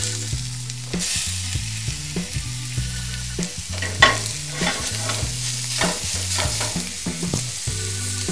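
Grated bottle gourd sizzling in hot oil with cumin seeds in a stainless steel frying pan. The sizzle swells about a second in, when the gourd hits the oil. It is crossed by short strokes of a silicone spatula stirring and scraping the pan, the sharpest about four seconds in.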